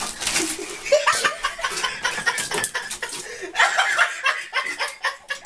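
Person laughing in short, breathy bursts, with a louder run of laughter about three and a half seconds in.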